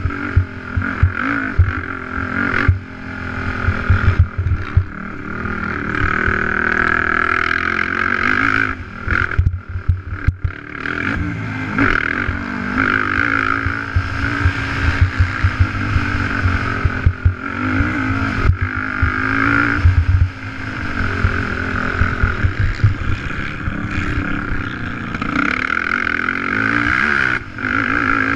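Race quad's (ATV's) engine running hard under the rider, its revs rising and falling over and over with throttle and gear changes. Around ten seconds in the revs drop sharply as the throttle is closed, then build again.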